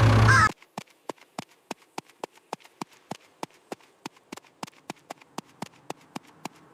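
Music cuts off abruptly, then a steady run of light, evenly spaced clicks or taps, about three to four a second.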